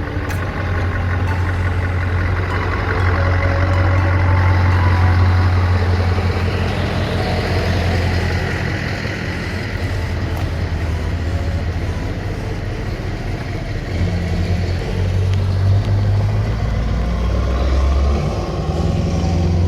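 Heavy trucks' diesel engines running with a loud, deep, steady drone as the trucks pull away; the engine note shifts about two-thirds of the way through and again near the end.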